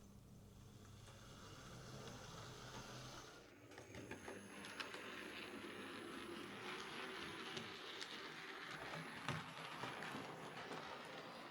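Hornby Class Q6 OO gauge model steam locomotive running on track under its newly fitted motor: a faint, steady whirr with light scattered clicks.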